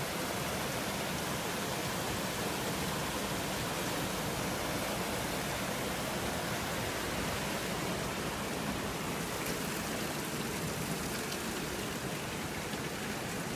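Steady rush of water released through a timber crib dam, churning over the rocks below it.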